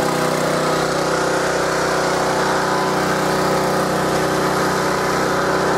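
Powerhorse gas pressure washer's 212cc overhead-valve Honda-clone engine running at a steady speed.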